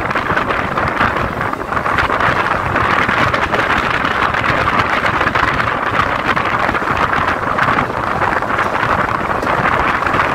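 Mumbai suburban local electric train running, a steady rushing noise of the moving train with wind on the microphone.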